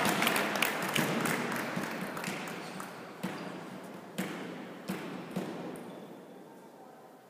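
Applause from spectators dying away over several seconds. Through it come a few sharp, spaced knocks of a table tennis ball bouncing, from about three seconds in.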